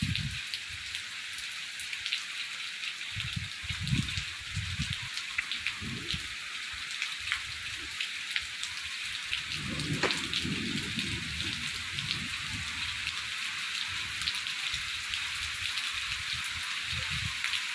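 Steady rain falling on foliage: a dense, even hiss full of sharp individual drop ticks. Several low rumbles swell up underneath, the strongest about ten seconds in.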